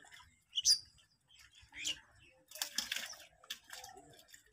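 Hands splashing and squelching in shallow muddy water while groping for fish, in short irregular bursts, with a couple of brief high chirps, the loudest near the start.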